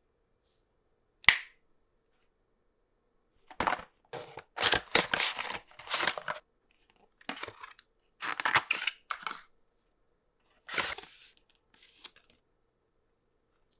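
Phone case and screen protector packaging being opened and handled: one sharp snap about a second in, then several irregular bursts of packaging noise, the loudest in the middle of the stretch.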